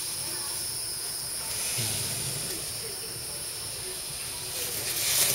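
American alligator hissing as a defensive warning, with its loudest hiss coming in a burst near the end. A steady high-pitched drone runs underneath.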